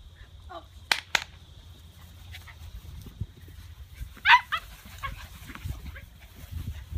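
Bernese Mountain Dog puppies giving short, high yips and barks, a few at a time. The loudest yip comes a little after four seconds in, with fainter squeaks scattered around it.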